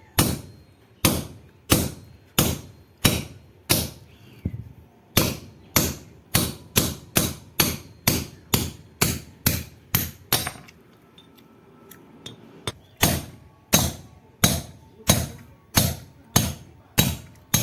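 Repeated hammer blows on metal, about one and a half to two a second, each with a short ringing tail. The hammering stops for about two seconds around two-thirds of the way through, then resumes at the same pace.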